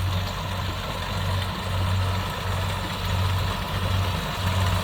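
Kubota DC70 rice combine harvester running at work, a steady engine drone whose low hum swells and fades about once a second.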